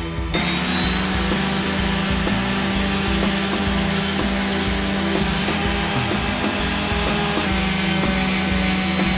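Metabo electric orbital sander running steadily, sanding an aluminium motorcycle engine cover, with a steady hum and a thin high whine. It comes in suddenly near the start.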